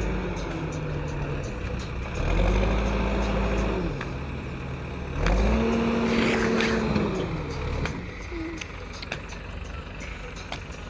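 Escorts Digmax-2 backhoe loader's Kirloskar diesel engine working, its note rising and holding under load twice, about two seconds in and again about five seconds in, each time dropping back toward idle. Scattered sharp clicks and knocks sound over the engine.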